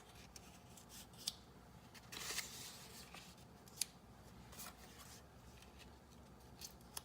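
Faint, scattered short scratches and clicks of a marker writing on a board, with a longer scratchy stroke about two seconds in.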